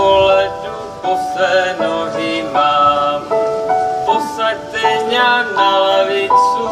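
A choir of voices singing a Wallachian folk Christmas carol, the melody moving in steady stepped notes.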